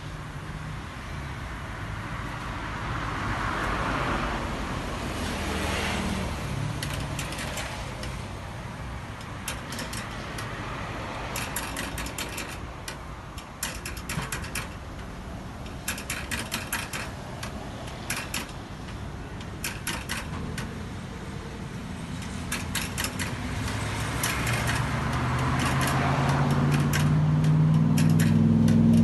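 Street traffic going by. A vehicle swells past a few seconds in, and a heavier vehicle's engine grows steadily louder near the end. In between there is a run of sharp clicks.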